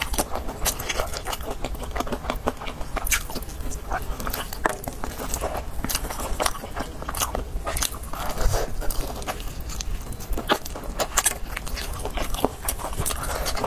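Close-up chewing and biting of sauce-coated fried chicken from a drumstick, with many irregular sharp crunches throughout.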